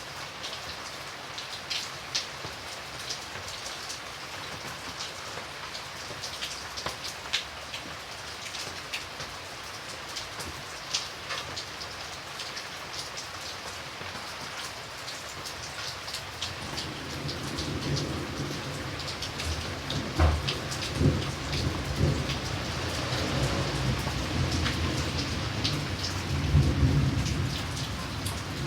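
Steady rain with many crisp individual drops striking close by. A bit past halfway a low rumble of thunder builds and rolls on, swelling twice near the end.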